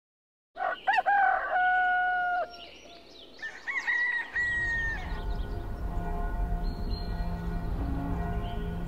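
Two rooster crows, each rising, held and dropping away at the end, the second higher-pitched than the first. A low steady drone with a few held tones comes in partway through the second crow and carries on.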